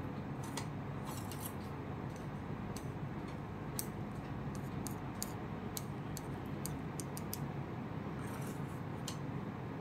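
Light, scattered clicks of a bamboo tea pick tapping and scraping against a porcelain gaiwan as it stirs the steeped tea leaves, over a steady low hiss.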